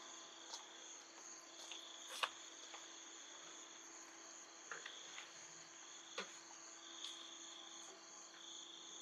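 Crickets or other insects calling: a steady high trill, with other trills that come and go every second or so. A few faint sharp clicks sound over it, the sharpest about two seconds in.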